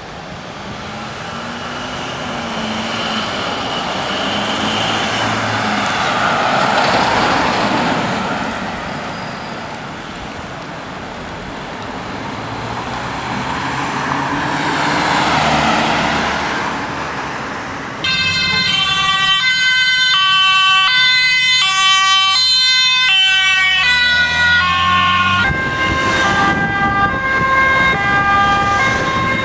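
Road traffic passing, with two swells of engine and tyre noise; then, past the halfway point, a Dutch ambulance's two-tone siren comes in loud, switching back and forth between a high and a low tone, and changes to a different siren pattern near the end.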